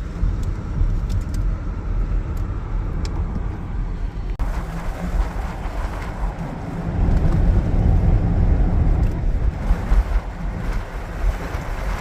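A car's steady low road rumble, with an abrupt change about four seconds in.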